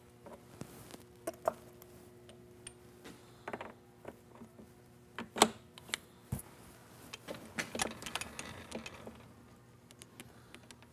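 Scattered clicks, clinks and knocks of metal lathe tooling being handled and set up for a chamfering cut, with one sharp metal clack about five and a half seconds in. A faint steady hum underneath stops about seven and a half seconds in.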